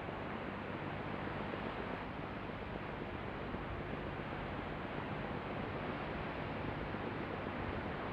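Steady hiss of ambient background noise with a faint low hum and no distinct events: a looped ambient track re-recorded through an open microphone together with room tone.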